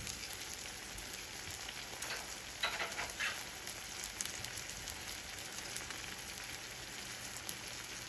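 Bele fish with lemongrass and spices sizzling in a little water and oil in a stainless steel pan over high heat: a steady hiss with small crackles, which briefly grows louder about three seconds in.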